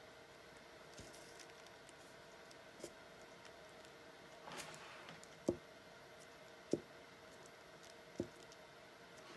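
Quiet paper rustle as a hand presses a small scrap of fabric onto a paper pattern, with four light, sharp knocks from handling tools on the work surface.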